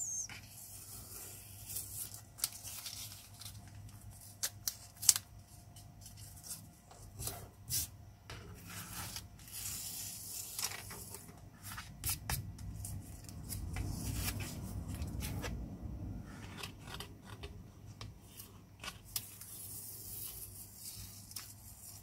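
Masking tape being peeled off the edges of watercolor paper and its board, in several short tearing pulls with scattered clicks and taps. In the middle there is a low rubbing of hands on the paper.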